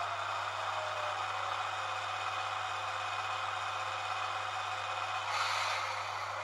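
Sound decoder of a Roco H0 model of an ÖBB 1044 electric locomotive playing the standing locomotive's sounds through the model's small speaker: a steady hum and whir, with a short hiss about five seconds in.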